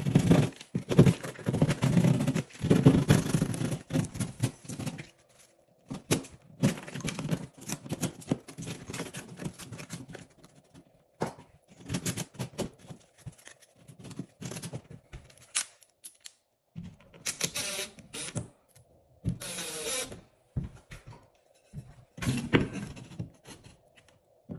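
Drywall jab saw sawing through gypsum board in rapid rasping strokes, in two long runs over the first ten seconds or so, then scattered scrapes and knocks as the cut board and a wooden backing strip are handled in the opening.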